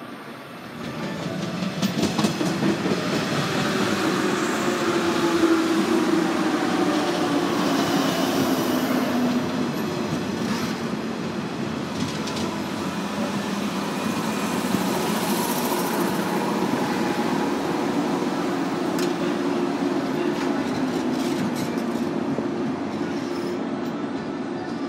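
Osaka Loop Line 103 series electric train (set LA4) pulling into the station and slowing, wheels running over the rail joints with a falling whine as it brakes.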